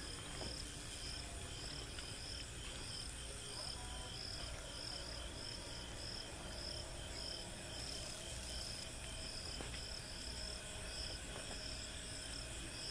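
Crickets chirping in a steady, even rhythm of about two chirps a second, over a faint low hum.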